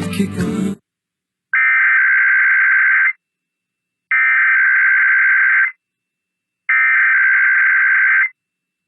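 Emergency Alert System SAME header: three bursts of buzzy digital data, each about a second and a half long with about a second of silence between, opening an IPAWS required weekly test. The broadcast audio cuts off just before, under a second in.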